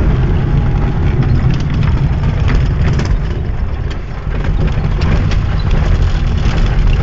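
Engine of a moving vehicle running steadily with a deep rumble, mixed with frequent knocks and rattles from the ride.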